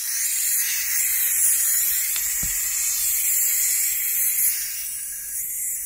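Compressed air hissing steadily out of an air compressor tank's drain line, easing off about five seconds in.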